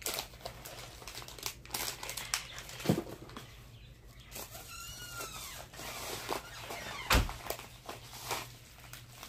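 Handling and rustling of packaging and wrapped items, with a knock about three seconds in and a heavier thump just after seven seconds as things are set down. A brief high squeak near the middle.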